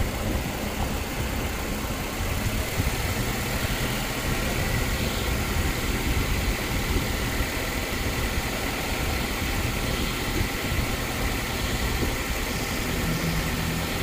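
2011 Suzuki SX4's 2.0-litre four-cylinder engine idling steadily with the AC compressor engaged, the compressor now running because the failed evaporator temperature sensor has been bypassed with a fixed resistance.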